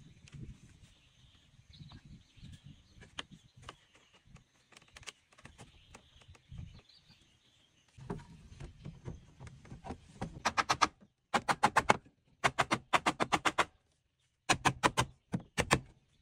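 Hatchet blows on bamboo: from about ten seconds in, four quick runs of sharp strokes, several a second, with short pauses between. Before that, light knocks of bamboo slats being fitted into the frame, with faint bird chirps.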